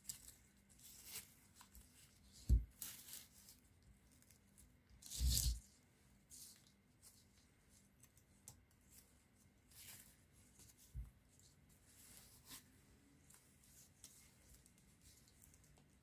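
Faint hand work on the rewound refrigerator fan motor's winding leads: scattered short scrapes and rustles, with a longer tearing scrape about five seconds in. A soft knock comes about two and a half seconds in and another about eleven seconds in.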